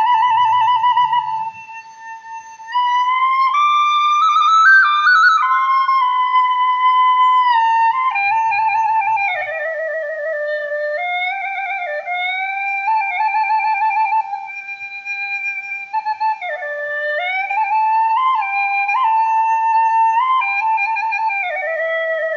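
Background music: a solo flute plays a slow melody with vibrato, held notes moving up and down in steps.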